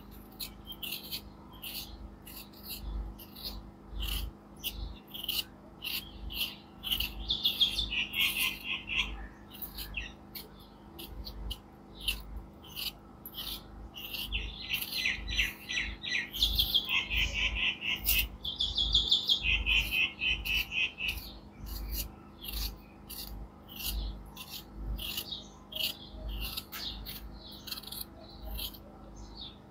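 Small birds chirping and twittering, with many short repeated chirps and stretches of fast trilling that are busiest in the middle.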